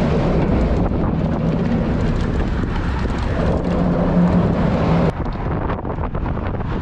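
Wind rumbling on the microphone over the noise of road traffic going past, with a steady hum that cuts off abruptly about five seconds in.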